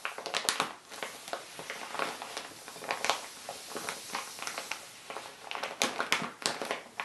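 Ballpoint pen tip scratching across paper as it draws: a steady dry scratchy hiss broken by many small irregular ticks.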